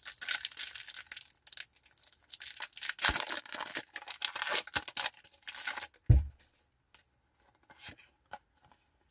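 Foil Pokémon booster pack wrapper being torn open and the cards slid out, crackling and ripping for the first six seconds or so. A single low thump follows, then a few faint clicks as the cards are handled.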